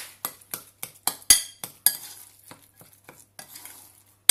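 Metal utensil stirring pork stuffing in a glass bowl, knocking against the glass in irregular clicks, a few a second, with a sharper clink near the end.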